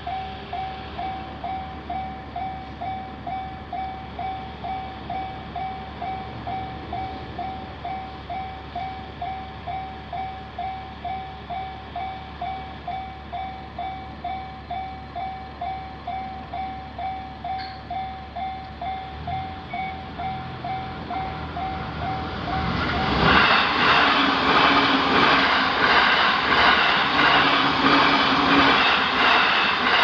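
Japanese level-crossing alarm bell ringing steadily at about two dings a second. From about 19 seconds in, a JR Joban Line electric train approaches with a growing rumble, then passes loudly through the crossing for the last several seconds, drowning out the bell.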